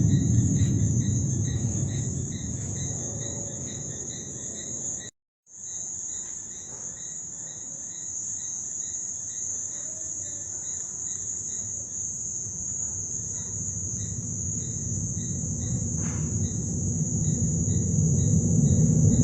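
A low, deep rumble in the sky, loudest at the start, fading over the first few seconds and swelling again near the end. Under it runs a steady high insect chorus with chirps pulsing a few times a second. The sound drops out completely for a moment about five seconds in.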